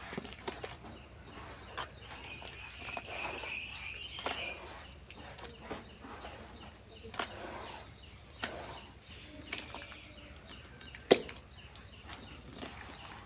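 Dry cement and dirt lumps being crumbled by hand: irregular soft crunches and gritty rustling with scattered small cracks, and one sharp snap about eleven seconds in. A faint thin high tone sounds for about two seconds near the start.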